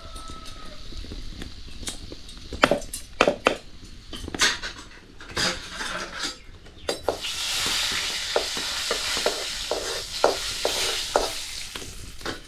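Metal spoon knocking and scraping in a cooking pan, then a sudden loud sizzle about seven seconds in as food hits hot oil and fries, with more stirring knocks over it.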